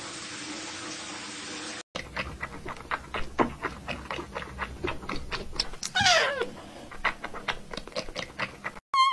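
Steady hiss for about the first two seconds, then a kitten lapping milk in quick wet clicks, with one falling meow about six seconds in.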